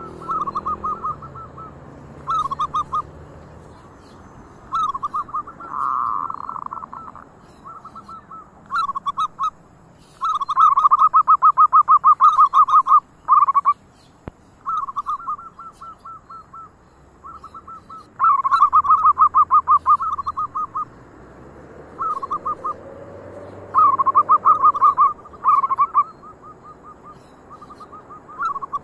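Zebra doves (perkutut) cooing: repeated phrases of rapid staccato notes, some short and some running for about three seconds, with brief pauses between them.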